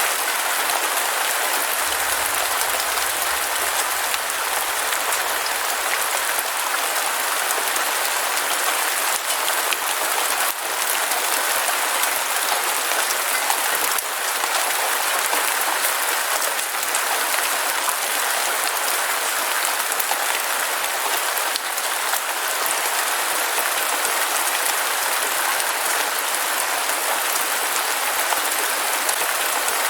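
Heavy rain falling steadily, a dense, even hiss of countless drops, with a faint low rumble for a few seconds near the start.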